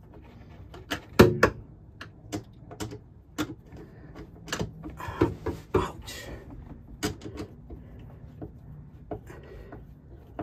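Irregular clicks, knocks and short scrapes of hands and a screwdriver working on the faucet's mounting hardware from under a sink, tightening it down. The loudest knock comes about a second in, with a busy run of clicks around five to six seconds in.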